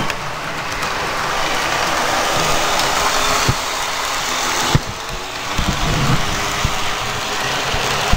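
HO scale model locomotive running along the track close to the camera: a steady rushing noise, broken by a few sharp clicks and knocks, the loudest a little under five seconds in.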